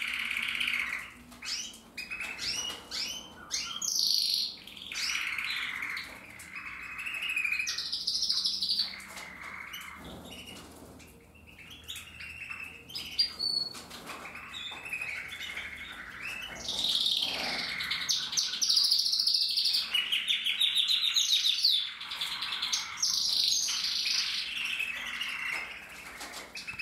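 Mosaic canaries singing: a long, continuous song of chirps, warbled phrases and fast trills of rapidly repeated notes, softer for a stretch about halfway through.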